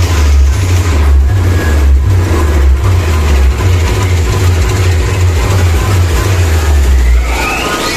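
Loud DJ music played through big speakers, heard as heavy, pulsing bass with distortion. A whistle rises in pitch near the end.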